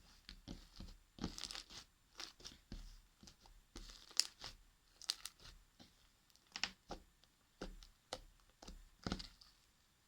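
Fluffy slime of clear glue and shaving foam being kneaded and stretched by hand, giving faint, irregular short crackling clicks and squishes.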